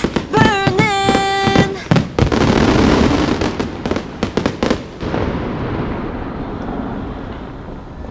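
Fireworks crackling and popping in a dense rapid run, then fading away over the last few seconds. The last notes of the show's music sound in the first two seconds.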